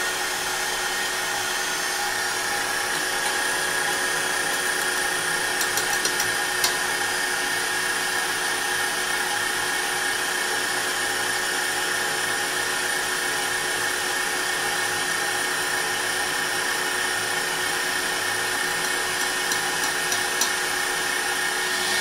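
KitchenAid Professional stand mixer running steadily, its wire whisk whipping egg whites for meringue, with an even motor whine and the whisk swishing through the froth in the steel bowl.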